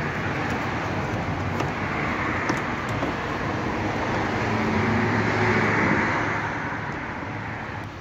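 Steady road traffic noise with a vehicle going by, swelling to its loudest about five to six seconds in and then fading, with a few faint small clicks.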